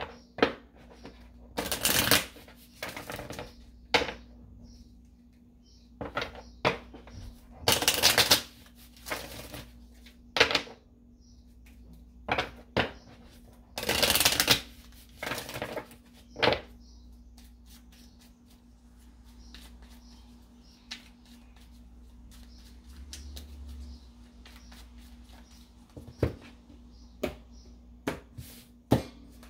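Tarot cards being shuffled by hand in several bursts of rapid flicking and riffling, with quieter stretches between. Near the end, cards are laid on the table with a few separate light slaps.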